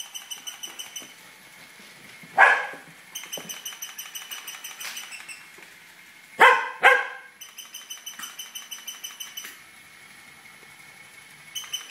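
Tibetan terrier barking three times: once about two seconds in, then twice in quick succession past the middle. Between the barks comes a rapid high-pitched pulsing from the toy rat, about ten pulses a second.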